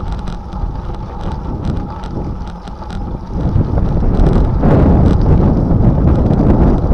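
Wind noise on the microphone of a camera carried on a moving bicycle, riding into a headwind: a loud, low, rumbling buffet that eases somewhat about a second in and swells again from about three and a half seconds.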